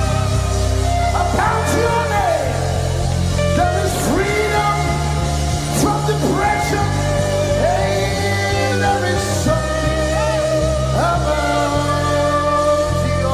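Live gospel worship music: a band with steady bass and sustained, wavering melody lines, sung or played, between lines of the song.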